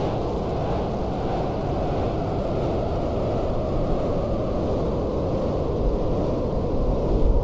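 Ciat-Lonbarde Sidrax drone synthesizer played through a delay pedal: a thick, steady, noisy drone in the low and middle range, with deeper low swells near the end.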